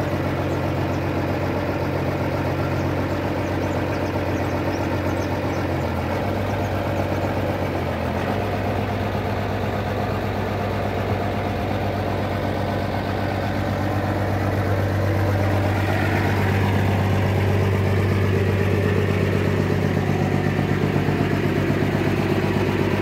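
Small truck's engine idling steadily. Its tone shifts briefly around 6 and 8 seconds in, and it runs a little louder from about 15 seconds in.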